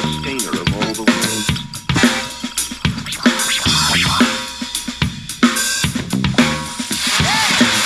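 Music with a drum-kit beat, bass drum and snare, and a pitched bass line, played back through an XDOBO Prince 1995 II Bluetooth speaker during a sound test.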